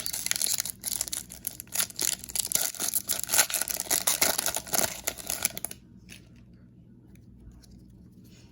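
A foil baseball card pack wrapper being torn open and crinkled in the hands, a dense run of tearing and crackling that stops suddenly near the end.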